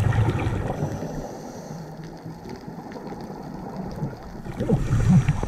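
Underwater scuba breathing: the diver's regulator exhaling a rush of bubbles at the start and again near the end, with a steady low wash between breaths and faint scattered clicks.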